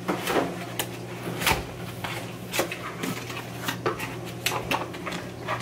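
A small cardboard box being handled and opened by hand: scattered taps, knocks and rustles of the cardboard and its flaps, the sharpest knock about a second and a half in, over a steady low hum.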